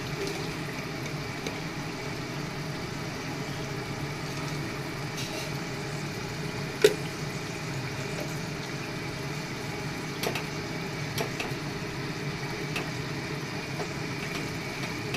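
Marinated chicken pieces frying in hot oil in a kadhai, sizzling steadily over a low hum. A single sharp clack about seven seconds in, with a few lighter clicks a few seconds later.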